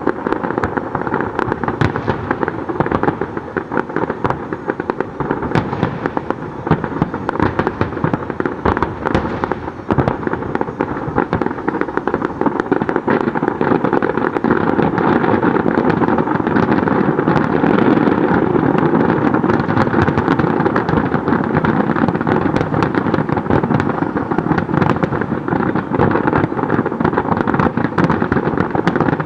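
Large professional fireworks display: a continuous barrage of overlapping shell bursts, bangs and crackle with no pause, swelling a little about halfway through.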